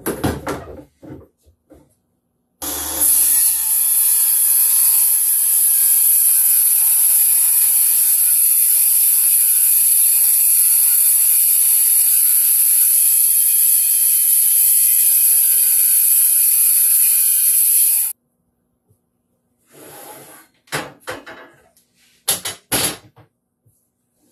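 Milwaukee M18 FUEL cordless circular saw running steadily under load, with a high whine, as it rips a 3/4-inch board for about fifteen seconds. It starts sharply a few seconds in and cuts off abruptly. Short knocks and clatter of wood being handled come before and after the cut.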